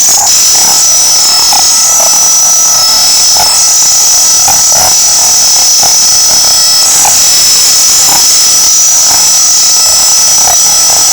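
A cheap Chinese shanzhai phone's speaker blaring a crash noise: a harsh, unbroken buzz with steady high whining tones, the noise such a phone gives out when it freezes.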